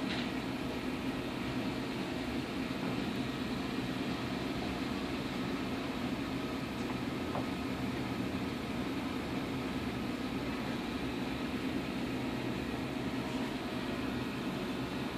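Steady hum with an even hiss from a running saltwater reef aquarium's pumps and water circulation.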